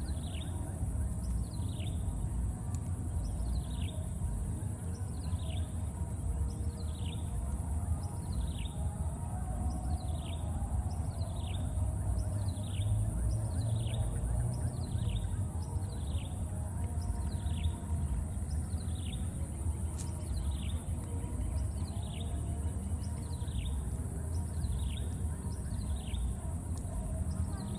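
A bird repeating a short, falling high whistle at a steady pace, about every three-quarters of a second, over a steady high-pitched hum and a low rumble.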